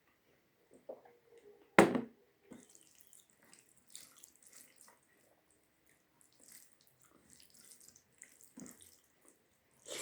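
Close-miked eating sounds: intermittent wet squelches and chewing of rice with dal, with one sharp knock about two seconds in.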